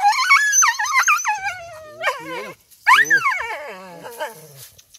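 Dog whining and yelping in pain while its injured front leg is handled. A run of high cries rising and falling in pitch fills the first second and a half. Several falling cries follow, the loudest about three seconds in.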